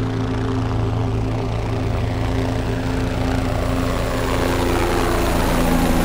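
Steady engine drone of an aircraft in flight, heard from on board, with a rushing hiss that grows stronger in the second half.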